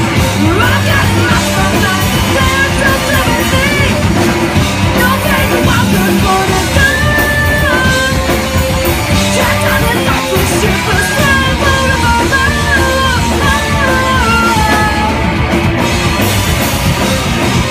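Live rock band playing loud, with distorted electric guitars, bass and drums, and a melodic line that rises and falls in steps.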